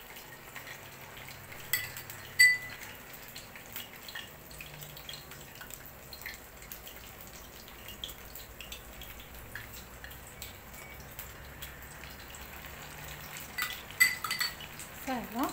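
Metal spoons clinking against the bowl and pan while spooning beignet dough into hot frying oil, over a faint background crackle of oil. There are two sharp clinks about two seconds in and a quick cluster of clinks near the end.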